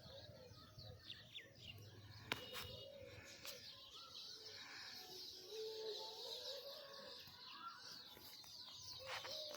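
Many small birds chirping and twittering, faint, with a couple of sharp clicks near the start and faint distant devotional singing from a temple wavering underneath.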